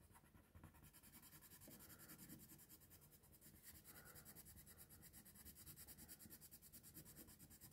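Very faint, irregular scratching of a light brown coloured pencil shading on paper.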